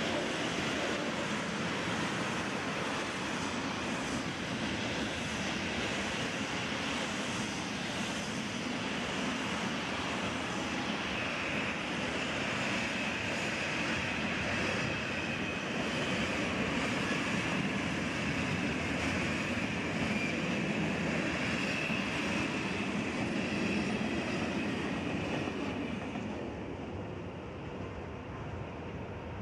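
Freight train of open wagons behind an electric locomotive rolling past at close range, its wheels clattering on the rails. A high, steady wheel squeal runs through the middle of the passage, and the sound falls away about 26 seconds in as the last wagon clears.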